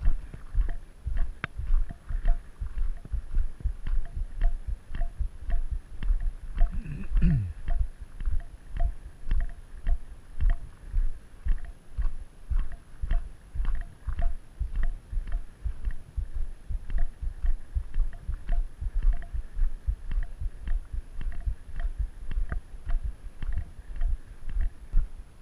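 Footsteps of a hiker walking on a gravel road, about two steps a second, each a low thud with a short crunch of gravel.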